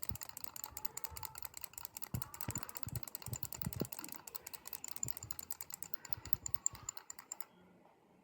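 Toy chick's small mechanism running and making a rapid, even clicking as the toy dances, stopping suddenly about seven and a half seconds in. A few soft knocks are mixed in.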